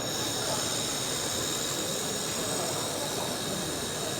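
Handheld laser welding machine running on 2 mm stainless steel: a steady hiss with several thin, high, steady whines over it.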